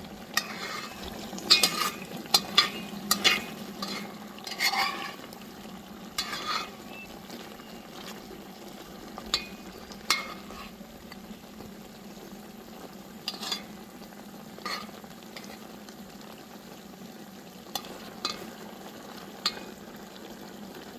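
A spoon stirring and scraping in a pot of cooking food, over a steady sizzle. The stirring strokes are busy for the first few seconds, then only occasional knocks.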